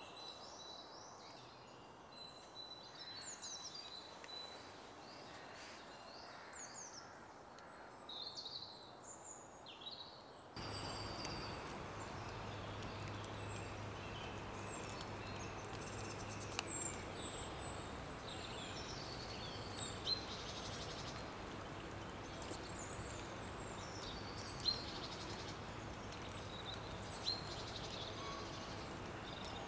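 Small woodland birds chirping and calling in short high notes scattered throughout, over a steady outdoor hiss that turns louder about ten seconds in.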